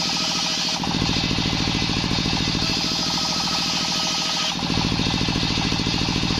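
Belt-driven circular saw bench running on a small engine with a steady pulsing beat, its blade ripping a plank of waru wood lengthwise. The sound shifts around a second in and again around four and a half seconds in, as the cut changes.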